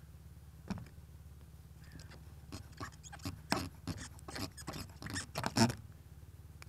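Handling noise: scattered small clicks and knocks, one near the start and then a busy run through the middle, as a camera and radio transmitter are moved about on a car roof. A steady low hum runs underneath.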